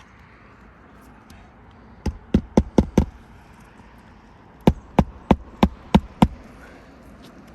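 Hand hammer driving roofing nails into asphalt shingles: two runs of sharp blows, about five and then about six, a few blows a second.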